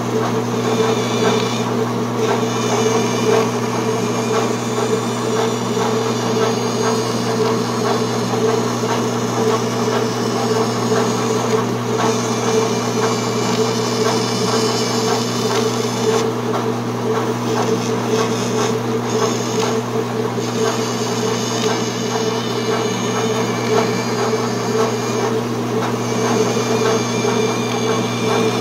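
Vertical bandsaw running steadily with a constant motor hum, its blade cutting a curve through a sheet of HDPE plastic, the higher cutting noise coming and going as the sheet is fed.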